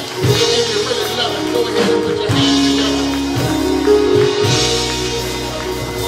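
Church worship music: a keyboard holding sustained chords, with drums.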